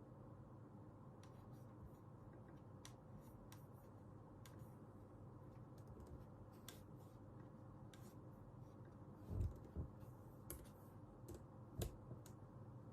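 Computer keyboard typing: sparse, irregular keystroke clicks over a faint steady hum, with a few louder, duller knocks about nine and twelve seconds in.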